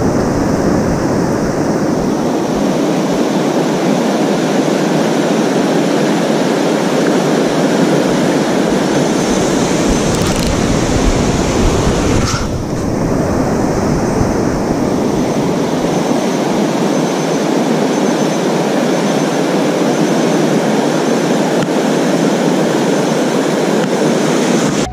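Steady, loud rush of fast river current flowing around a wading angler.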